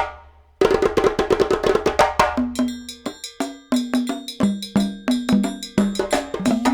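Background music: a percussive beat of sharp, wood-block-like knocks and short low notes, starting after a brief pause about half a second in.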